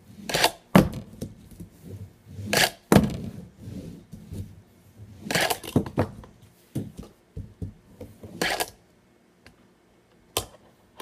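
Tech Deck fingerboard and plastic ramp pieces knocking and scraping on a wooden tabletop: a handful of short clacks and scrapes a second or two apart, with a quieter stretch near the end.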